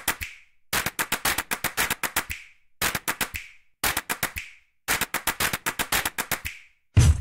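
Quick runs of sharp clicks, several at a time, in bursts of under a second separated by brief silences: a percussive sound effect. Drum-led music comes in near the end.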